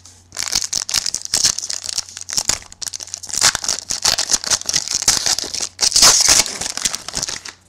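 A trading card pack's wrapper crinkling and tearing as the pack is ripped open and handled, a dense crackle with a short lull about three seconds in.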